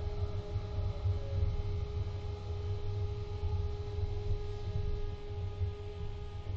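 Interior of a Vienna–Baden interurban tram car running along the street: a steady low rumble with a constant electrical hum, and a faint whine that falls in pitch over the first second and a half.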